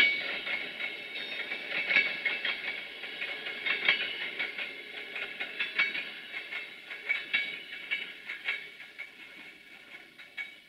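Passenger train coaches rolling away on curved track: wheels clicking over rail joints, with a high squeal of the wheels against the rails, fading as the train recedes.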